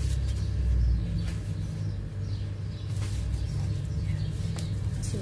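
Steady low rumble, with faint wet clicks and squishes from gloved hands rubbing garlic paste into a raw whole chicken.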